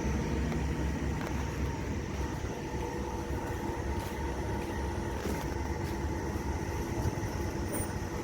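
A vehicle engine running steadily: a low rumble with a faint steady hum above it.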